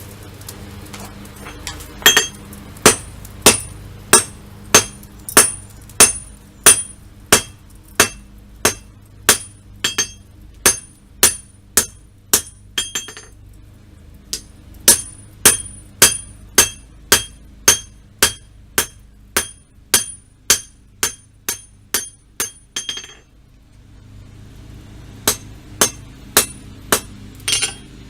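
Blacksmith's hammer striking hot steel on an anvil during rough forging, a steady run of blows about one and a half a second, each with a bright ring. The blows come in three runs, with short pauses about 13 and 23 seconds in. A steady low hum runs underneath.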